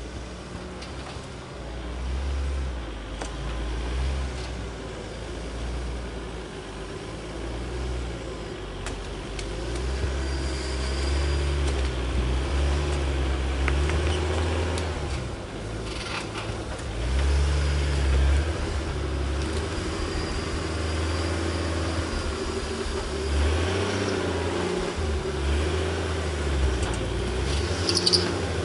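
Lifted rock-crawling Toyota 4Runner's engine running at low revs, the revs rising and falling as it crawls over logs and rocks, growing louder as it comes closer. A few short knocks, the loudest near the end.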